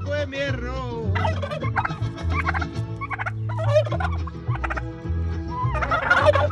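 Bourbon Red turkey toms gobbling in several short, rapid bursts, the loudest near the end.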